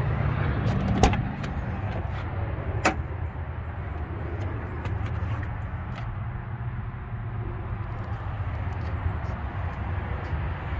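Nissan Patrol Y60's 2.8-litre turbo-diesel inline-six idling steadily, with two sharp clicks of the door latch, about one and three seconds in, as the door is opened.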